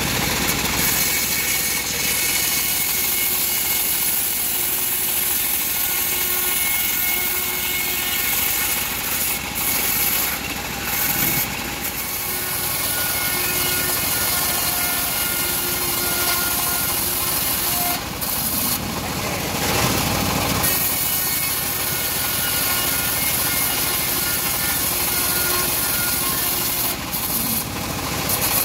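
Homemade bandsaw mill ripping a teak log, the blade cutting through the wood with a steady rasp over the machine's running motor.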